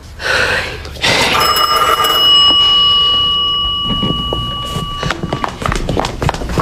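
Telephone ringing: one long, steady ring lasting about four seconds, followed by quick footsteps across a hard floor near the end.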